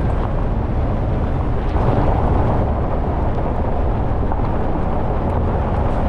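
Loud, steady rumbling noise, strongest in the deep range, with no tone or rhythm in it.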